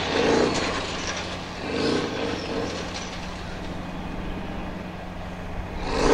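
Formula Offroad buggy's engine revving hard in repeated bursts, rising and falling in pitch, while the car hangs on a steep gravel slope with its wheels spinning. The loudest bursts come at the start, about two seconds in, and again near the end.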